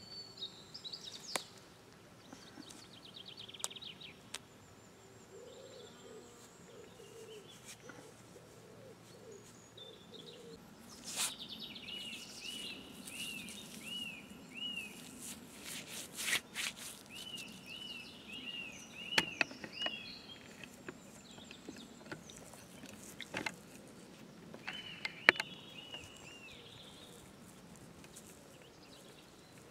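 Birdsong: a bird repeats a quick series of arched chirps three times, over faint background noise. A few sharp clicks break in, the loudest near the end.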